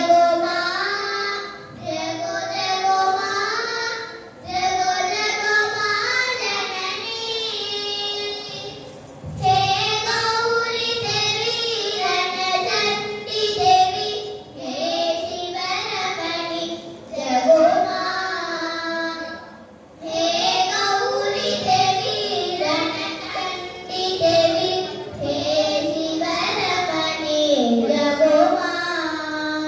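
Two girls singing a Carnatic classical vocal duet, in long melodic phrases with short breaks for breath.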